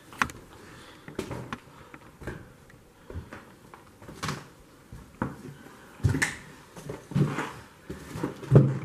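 Footsteps on a debris-strewn floor: separate knocks and scuffs, about one a second, with the loudest thud near the end.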